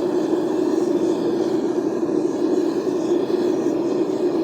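Propane burner firing a homemade aluminum melting furnace, burning with a steady, even low rush of gas and flame.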